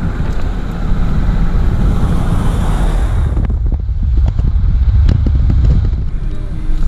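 Car driving: a steady low rumble of road and engine noise. A hiss on top drops away about three seconds in, and a few light knocks follow.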